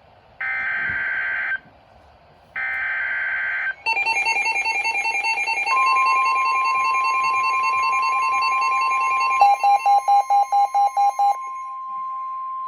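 Weather radio emergency alert: two short buzzing bursts of SAME digital header data, then a loud pulsing receiver alarm. The steady 1050 Hz NOAA Weather Radio warning tone comes in about six seconds in and holds. Near the end there is a fast run of beeps, about five a second.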